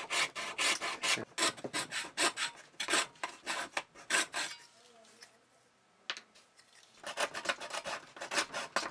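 Coping saw cutting through a thin wooden board by hand in quick back-and-forth strokes, about three a second. The strokes stop for about two seconds a little past the middle, then start again.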